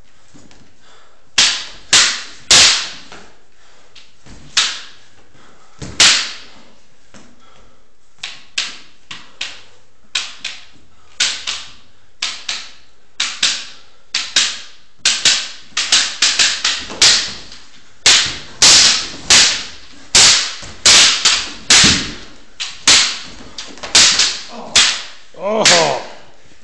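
Wooden practice swords clacking together in sparring: sharp knocks, a few spaced out at first, then coming quickly in fast exchanges through the second half.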